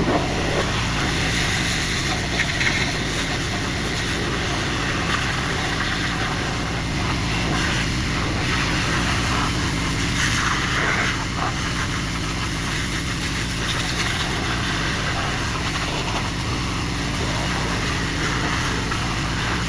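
A pressure washer running steadily: its engine drones under a continuous hiss of water spray as the sandblasted truck frame is washed down.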